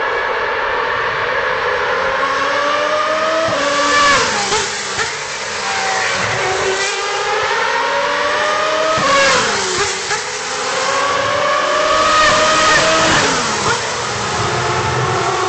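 Superleague Formula race cars' 4.2-litre V12 engines at high revs, the pitch climbing with quick gear changes, then dropping sharply as the cars pass. This happens three times, about 4, 9 and 13 seconds in.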